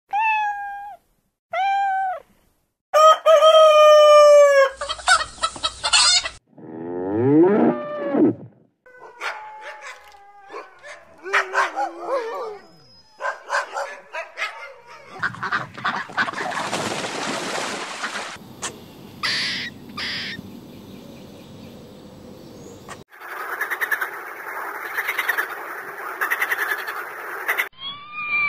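A run of farm animal calls, one clip after another. It opens with two short cat meows, followed a little later by a rooster crowing, and then hens clucking and other barnyard animal calls.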